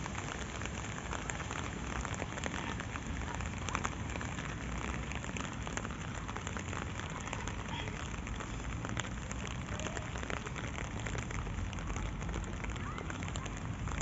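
Rain falling on a wet asphalt path and grass: a steady hiss dotted with many small drop ticks.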